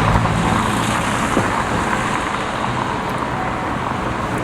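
Steady road traffic noise, with a vehicle engine's low hum loudest in the first second or so and then fading.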